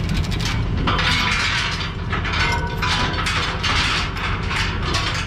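Ratchet chain binder being cranked to tighten a tie-down chain, giving repeated ratcheting clicks about one or two a second, with chain rattle, over a steady low hum.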